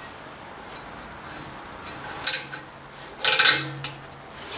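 Small clicking and clattering of zip ties and hand tools being handled while wiring is tied up, in two short bursts about two and three and a half seconds in.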